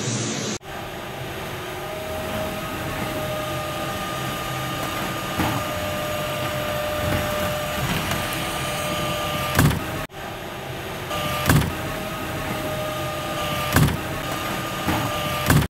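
Bakery production-floor machinery running: a steady hum with a faint whine, breaking off for an instant twice. In the second half come four sharp knocks, about two seconds apart.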